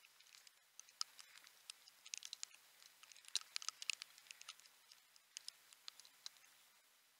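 Light rain: scattered raindrops ticking irregularly on the action camera's case close to the microphone, busiest a few seconds in.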